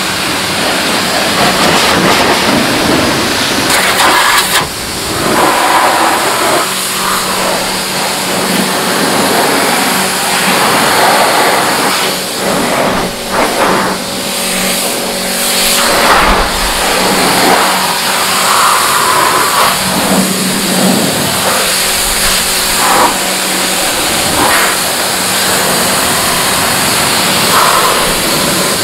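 Pressure washer jet hissing and spattering off the plastic panels of an electric car's front trunk, over the steady hum of the washer's motor. The spray breaks off briefly a couple of times.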